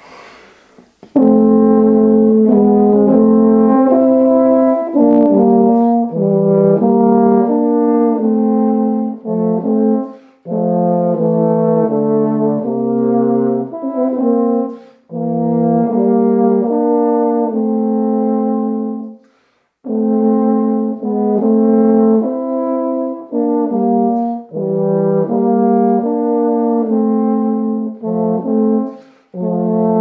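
Two tenor horns playing a duet in harmony. A traditional brass tune in phrases with short pauses for breath. It starts about a second in.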